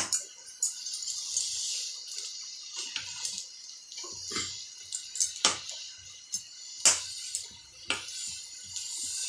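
Steel spoon scraping and stirring thick cooked semolina around a steel kadai, with several sharp clinks of the spoon against the pan, the clearest about five and a half, seven and eight seconds in.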